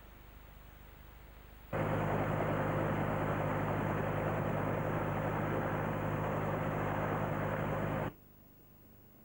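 Robinson R22 helicopter running on the ground, a steady drone of engine and rotor with a low hum. It comes in suddenly about two seconds in and cuts off just as suddenly near the end.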